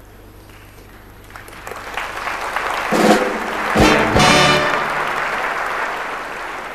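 Audience applause swelling up after about a second and a half, with a short brass-band flourish, a carnival Tusch, loudest from about three to four and a half seconds in. The applause then slowly dies down.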